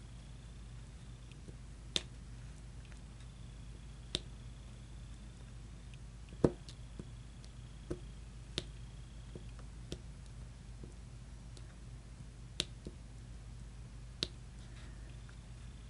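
Diamond painting pen pressing resin drills onto the sticky canvas: sharp, separate taps every second or two, the loudest about six and a half seconds in.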